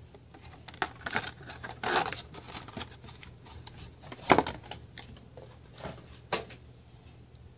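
Clear plastic packaging insert and cardboard window box of a Funko Pop vinyl figure handled as the figure is taken out: scattered crinkles and rustles with a few sharper clicks, the loudest about four seconds in.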